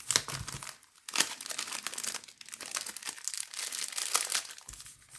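Trading-card pack wrapper crinkling and tearing in the hands as a pack of Topps Chrome baseball cards is opened, an irregular crackle throughout.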